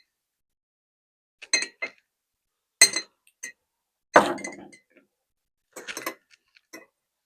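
Glass bottles and containers clinking and knocking as they are handled. There are about six sharp knocks, some with a short glassy ring, and the loudest comes about four seconds in.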